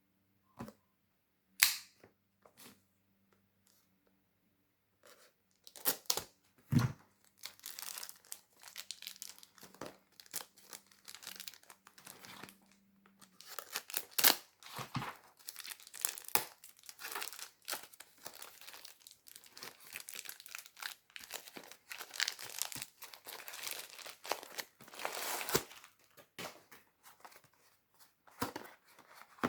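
A parcel's packaging being opened by hand: a few sharp knocks at first, then wrapping torn and crinkled almost continuously.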